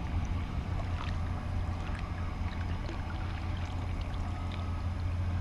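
Steady low rumble with faint scattered ticks and light water sounds: the background of a canoe sitting on a lake, with no single distinct event.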